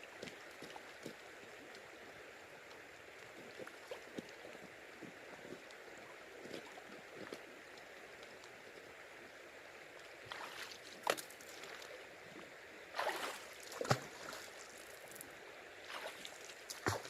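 River water running steadily, with several sharp splashes and knocks in the second half as gravel and stones are worked in the water.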